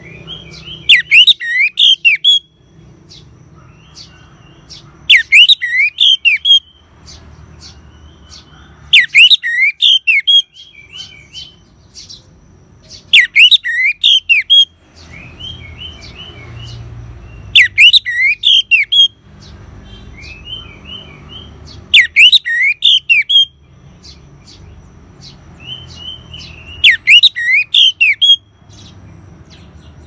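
Orange-headed thrush singing: seven short, loud phrases of quick sweeping whistled notes, one about every four seconds, with a faint low rumble in the pauses between.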